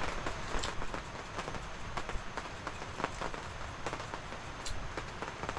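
Light rain falling, a steady hiss with irregular drops ticking through it.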